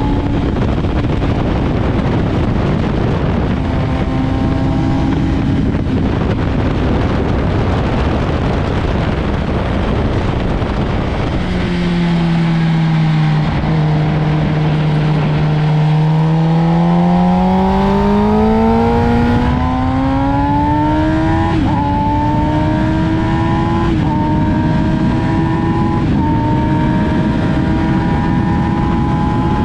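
Motorcycle engine at speed on a race track, under heavy wind rush. About twelve seconds in the revs drop low as the bike slows, then climb steadily, with upshifts about two seconds apart near the end.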